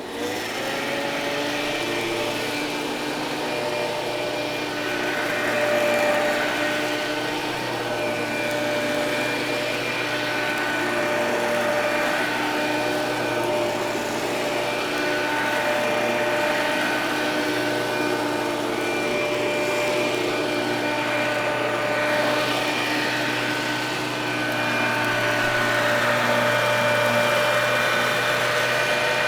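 Motor of a 1972 Montgomery Ward Signature Custom upright vacuum cleaner, built by Eureka. It is switched on right at the start, spins up within the first moment, then runs with a steady whine through the vacuuming.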